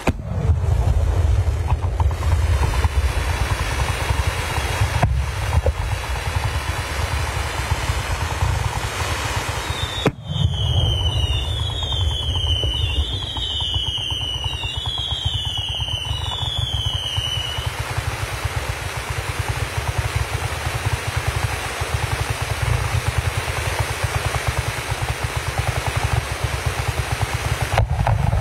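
Fireworks display: a dense, continuous rattle of fireworks cakes and shells launching and bursting. From about ten seconds in, a whistling firework warbles for about seven seconds, its whistle falling in pitch about five times over.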